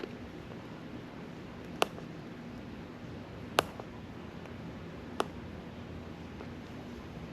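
Sharp single clicks at an even pace, four of them, about one every second and a half, over a steady low hum.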